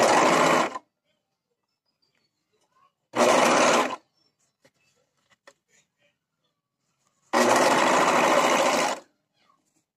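Singer Ultralock overlock (serger) stitching in three short bursts: a second or less at the start and about 3 s in, then about a second and a half near the end, with faint ticks in the pauses between.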